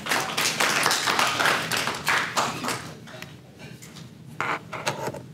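Audience clapping in applause, dense for the first two or three seconds, then thinning out to a few last claps near the end.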